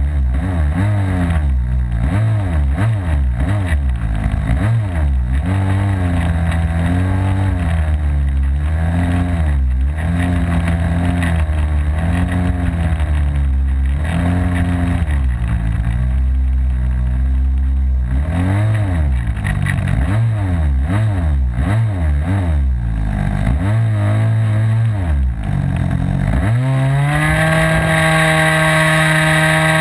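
OS 55 AX two-stroke glow engine on a model aircraft, heard from close on the airframe, running at low to part throttle with its pitch repeatedly rising and falling as the throttle is worked. About 27 seconds in it opens up to a steady, high-pitched full-throttle run for the takeoff.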